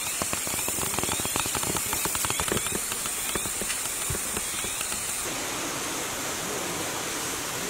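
Quick running footsteps crunching and crackling through dry leaf litter, over a steady high insect hiss; the crunching thins out after about five seconds.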